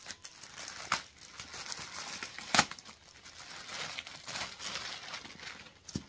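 Plastic bag crinkling and rustling as a handbag is taken out of its wrapping, with a couple of sharp crackles, the loudest about two and a half seconds in.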